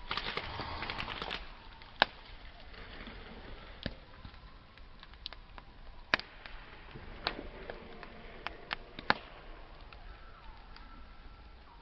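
Wood campfire crackling: a dense run of crackle for about the first second and a half, then scattered sharp pops of burning wood, the loudest about two seconds in and near nine seconds.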